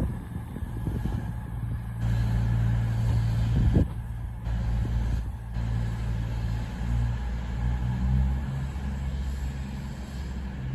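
A train's engine running with a steady low hum that shifts slightly in pitch about seven seconds in, with a single knock about four seconds in.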